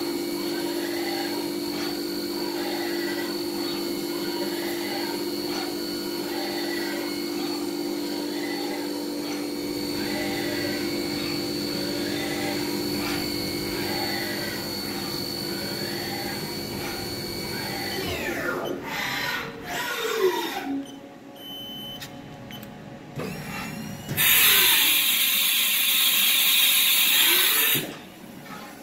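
Haas Mini Mill 2 CNC vertical machining center running: a steady spindle whine, with a whine that rises and falls about once a second as the axis motors traverse. About 18 s in the whine falls in pitch as the spindle spins down. Near the end comes a loud hiss lasting about four seconds.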